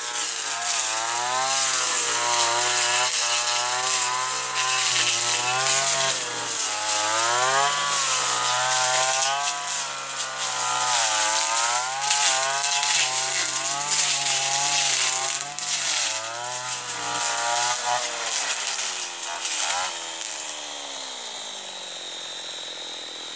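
Husqvarna 226R brushcutter's two-stroke engine running at high revs while cutting dense tall grass, its pitch rising and falling as the load comes and goes. Near the end the revs slide down and the engine quiets.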